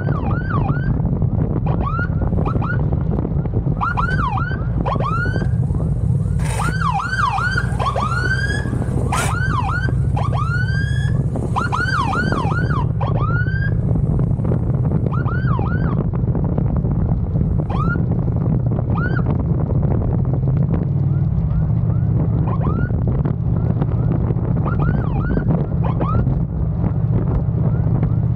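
Police motorcycle siren giving short whooping chirps that sweep up and fall back, fired in quick clusters through the first half and more sparsely later. A steady low rumble of wind and engine runs under it from riding at speed.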